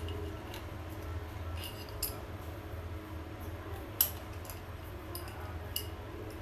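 Adjustable wrench clinking against a brass concealed-valve fitting as it is turned and re-gripped: about six sharp metallic ticks, the loudest about four seconds in, over a low steady hum.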